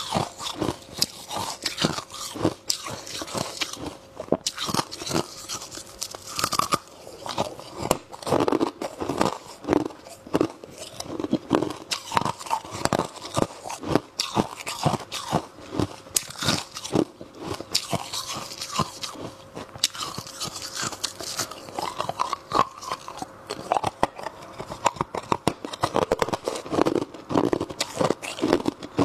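Freezer frost being bitten and chewed, close-miked: a steady run of rapid, crisp crunches from the mouth.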